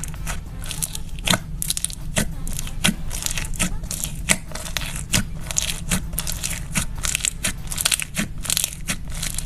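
Slime being squeezed and poked, giving a string of sharp clicking pops, several a second with louder ones about once a second, over a steady low hum.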